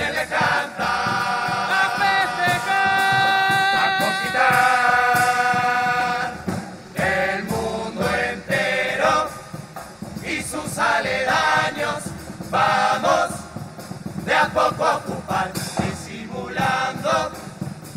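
Murga chorus of male voices singing in unison and harmony. They hold one long chord from about two to six seconds in, then break into shorter, choppier phrases.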